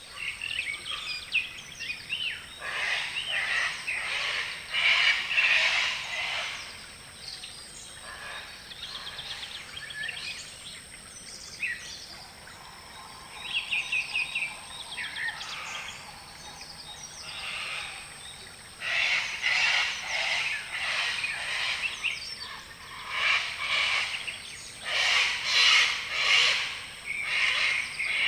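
Parrots calling in repeated harsh chattering bursts, busy at the start, sparse in the middle and busy again from about two-thirds of the way in, over a steady high-pitched whine.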